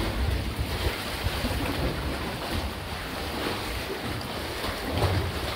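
Lake water lapping and sloshing against sandstone sea-cave walls, with wind rumbling on the microphone.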